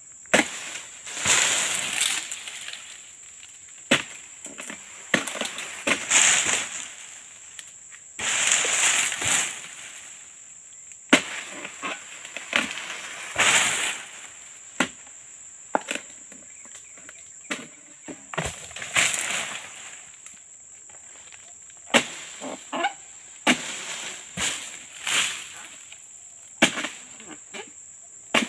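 Long-pole harvesting sickle hacking at an oil palm crown: irregular sharp chops and cracks, with bursts of rustling and swishing as fronds are cut and fall. A steady high insect drone runs underneath.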